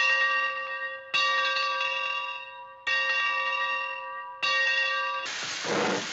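A bell struck again and again, about every second and a half, each stroke ringing on with several overtones and fading before the next. Near the end the ringing gives way to a loud, steady hiss.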